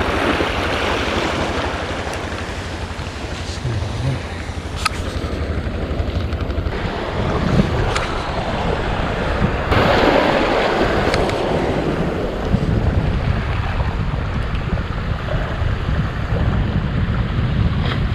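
Sea waves washing against a rock breakwater, with wind buffeting the microphone; the wash swells near the start and again about ten seconds in, and a few faint clicks sound in between.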